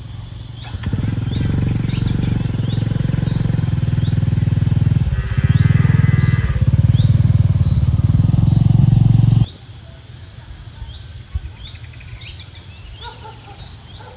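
Strong wind buffeting the microphone in a loud, low rumble that stops abruptly about nine and a half seconds in. A steady high-pitched tone and faint chirps run underneath.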